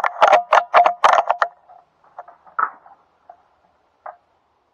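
A quick run of about eight sharp metallic clicks and rattles with a slight ring over the first second and a half, then a few fainter single ticks.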